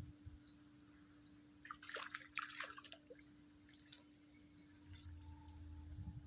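A small bird faintly chirping over and over, short rising notes about twice a second, with a brief burst of crackles about two seconds in.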